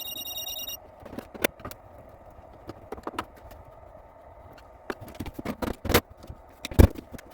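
Irregular clicks, taps and knocks of screws, a screwdriver and the plastic case of an Acorn A3000 computer being handled during disassembly, with two louder knocks near the end. A brief high-pitched whine sounds in the first second.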